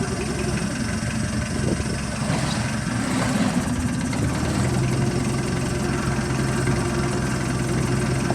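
Fishing boat's diesel engine running steadily. About halfway through, its note settles into an even, low hum.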